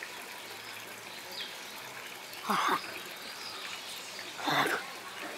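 A man's short wordless vocal sounds, twice, each falling in pitch, about two and a half and four and a half seconds in. Underneath, a faint steady outdoor background with a few bird chirps.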